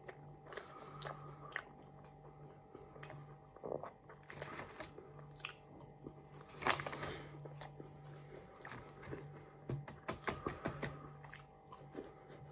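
A person chewing and biting fish and chips, with irregular crisp crunches. A faint steady hum lies underneath.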